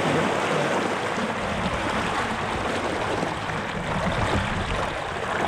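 Water rushing and splashing steadily along the hull of an RS K6 sailboat under way through light chop, with a deeper rumble joining in from about a second and a half in.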